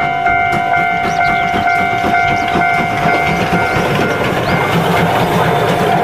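Steam locomotive dressed as Thomas the Tank Engine passing with its passenger carriages: a long steady whistle sounds over the running train and fades out about four seconds in, leaving the rolling clatter of the carriages going by.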